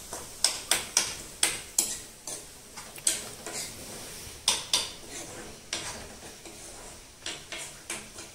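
Metal spoon clinking and scraping against a black iron kadai as food is stirred in it. The sharp, irregular clinks often come two or three close together.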